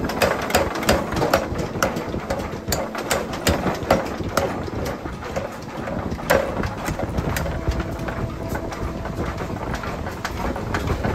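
Mechanical power hammer's ram pounding a red-hot steel hammer head held in tongs: quick blows about three a second for the first few seconds, then fewer, with one heavy blow a little past the middle as a punch is driven into the hot head. The hammer's machinery keeps a steady hum underneath.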